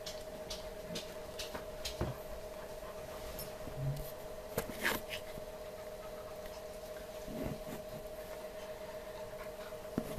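Quiet indoor room tone with a steady faint hum, broken by scattered soft clicks, taps and rustles of handling and movement.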